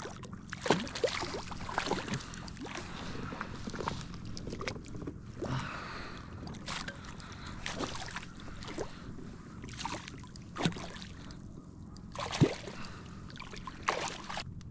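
Handling noises on a kayak with a freshly landed lake trout: irregular knocks, rustles and water sloshing, with a few sharper knocks.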